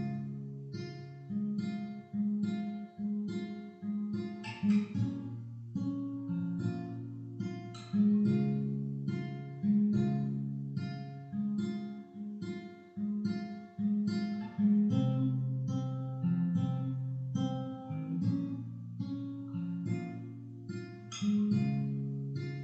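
Background instrumental music: an acoustic guitar picking a slow melody over low bass notes, each note struck and ringing out as it fades.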